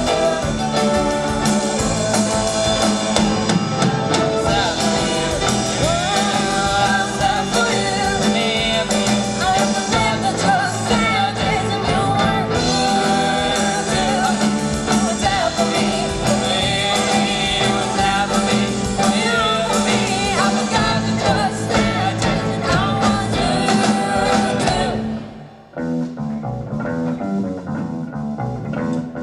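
Live rock band playing an instrumental passage with electric guitar and drum kit. About 25 seconds in the band cuts out for a moment, then carries on more sparsely and quietly.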